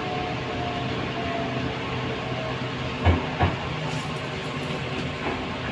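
An 81-722.1 metro car running in over the rails, a steady rumble with a faint whine that fades out partway through, as it pulls into a station. Two heavy thuds come about three seconds in, a fraction of a second apart.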